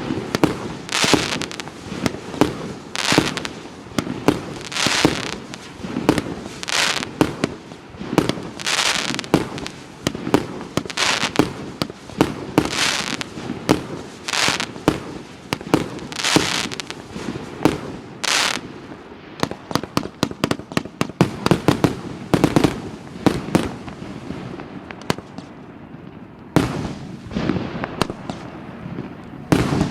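Profi SU 01-228W 228-shot fireworks cake, 30 and 50 mm calibre, firing a continuous barrage: shells launching and bursting about once a second. About two-thirds of the way in comes a quick run of many sharp cracks, followed by sparser shots.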